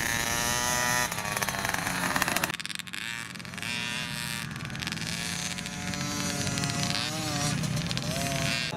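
Small junior dirt-bike engines revving as the bikes ride past, the pitch climbing and dropping with the throttle. The engine sound changes abruptly about two and a half seconds in.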